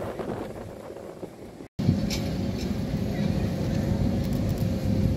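Steady low outdoor rumble with a constant faint hum, broken by a brief dropout about two seconds in, after which the rumble is louder.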